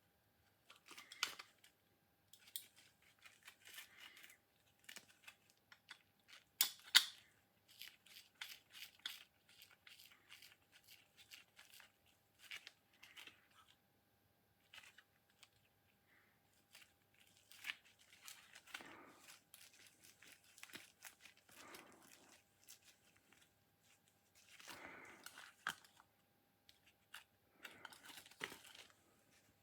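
Small irregular scrapes, clicks and rustles of hand work on small metal parts, with a sharp click about 7 seconds in; no machine is running.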